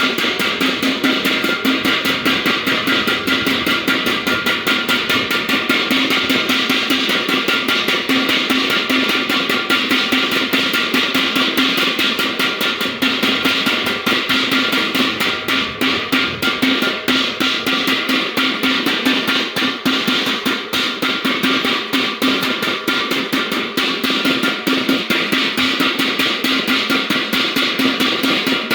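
Background music with a fast, steady drum beat and guitar.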